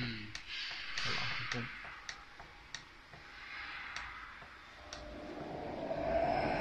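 Light clicks of a button being pressed over and over on a hydroponic fodder machine's control panel, about one every half second, while a setting is stepped. A rising wash of noise grows near the end.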